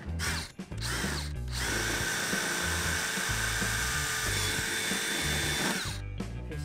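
Router (or similar power tool) spinning its bit as it is plunged through the plastic rail cap to bore a hole in the center. It starts about one and a half seconds in, holds a steady whine, and cuts off near the end, with background music underneath.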